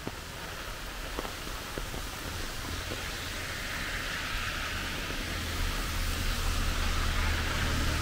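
Steady hiss of rain and running water, with a few faint drips or ticks in the first couple of seconds. A low rumble grows louder through the second half.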